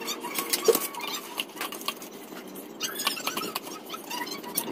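Light metallic clicking and rattling of a Honda Zoomer 50cc engine's cam chain as it is pulled up out of the cylinder opening. A few short squeaky chirps are heard around the middle.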